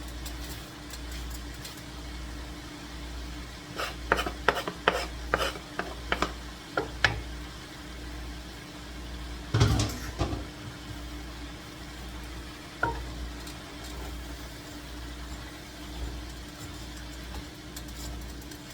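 A utensil stirring egg roll filling of meat, mushrooms, noodles and cabbage in a pan, with quick clicks and scrapes against the pan and a faint sizzle. A run of taps comes about four to seven seconds in, and a louder knock comes near the middle.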